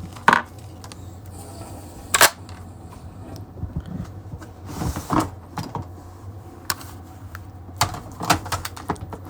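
Scattered short clicks and knocks, a few seconds apart, over a low steady hum.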